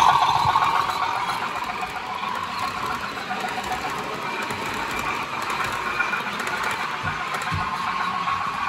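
OO-gauge model freight train running past on curved track, its wagon wheels squealing and rattling steadily on the rails. The sound is loudest at the start as the locomotive goes by.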